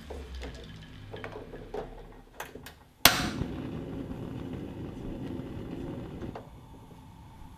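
A metal ladle clinks against a glass bowl as boiled eggs are lowered into ice water, with small knocks and splashes. About three seconds in, a gas stove burner is lit with one sharp igniter click and burns with a steady rush of flame, which drops sharply about three seconds later.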